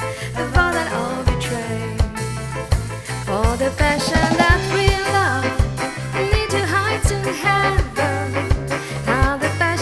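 Ska music: bass and drums keep a steady beat, with a lead melody line that bends in pitch over it.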